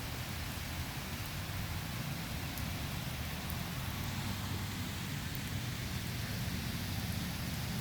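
Steady rain falling during a thunderstorm, an even hiss with a few faint sharp drop taps and a low rumble underneath.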